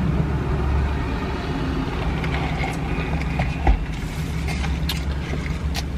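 Chewing and small eating clicks over a steady low rumble.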